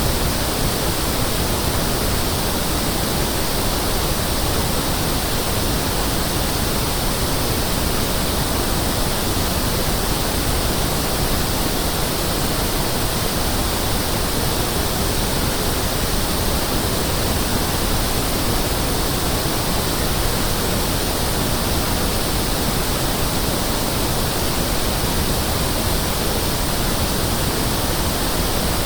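Pink noise test signal: a steady, unbroken hiss with equal level in every octave band, used for testing loudspeakers, sound systems and room acoustics.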